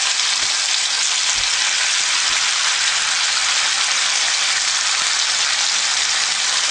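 Plantain slices frying in hot oil in a cast-iron skillet, a steady sizzle.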